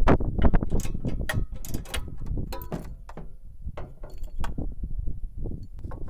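Irregular metallic clicks and knocks of a wrench and cut-down socket being worked on the welder's exhaust oxygen sensor, with low handling thuds. The sensor is seized and won't come out.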